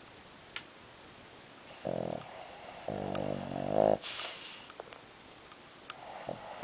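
Dog snoring in its sleep: a short snore about two seconds in, then a longer, pitched snore that ends in a hissing breath, and another snore beginning near the end.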